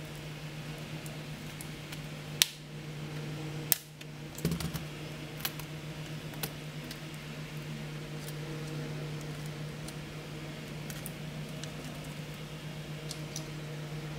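Plastic clicks and taps from a Toshiba NB200-series netbook keyboard being worked free and lifted out of the case: two sharp clicks a few seconds in, a short cluster just after, then lighter scattered ticks. A steady low hum runs underneath.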